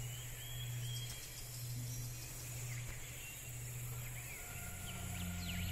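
Soft ambient soundtrack intro: a steady low hum with faint bird-like chirps. About four and a half seconds in, a deeper held note and higher steady tones come in as the music builds.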